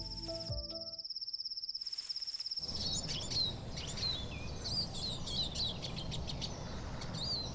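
An insect, cricket-like, trilling steadily in a fast high pulse. About three seconds in, many short bird chirps take over, sliding up and down, over a low steady background noise.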